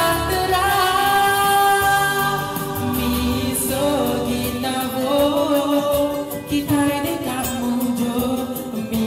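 A song: singing voices with instrumental backing, with long held notes early on and a moving melody after.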